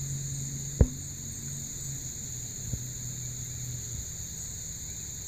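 Steady high-pitched insect chorus over a low steady hum, with one sharp click a little under a second in and a fainter one in the middle.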